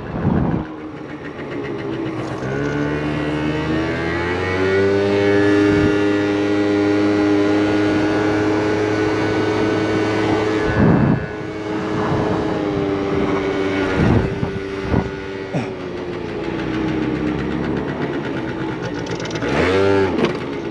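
Small automatic moped engine running under way, its pitch holding steady and then shifting as the throttle changes, with several quick revs in the second half.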